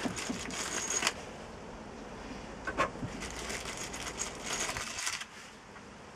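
A plastic bag rustling and a few light clicks as steel coach bolts are handled and set into holes in a timber frame. The rustling comes in two spells, with the clicks about three seconds in.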